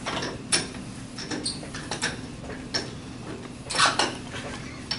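Light clicks and clinks of a wooden plate blank and metal tools being handled at a woodturning lathe, with a louder clatter just before the end. A steady low hum runs underneath.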